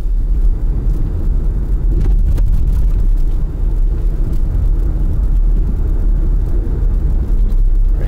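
Mitsubishi Endeavor's 3.8-litre V6 and road noise heard from inside the cabin as the SUV accelerates under part throttle: a steady low rumble.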